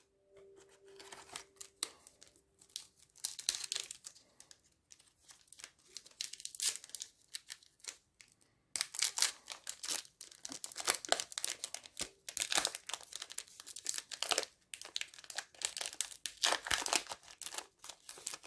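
Trading card pack wrapper being torn open and crinkled by hand: irregular rustling and tearing, sparse at first and busier from about halfway through.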